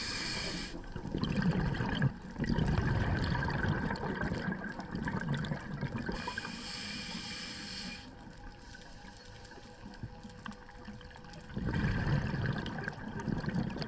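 Scuba diver breathing through a regulator underwater: a hiss of inhaling about six seconds in and again near the end, between rumbling, gurgling bursts of exhaled bubbles.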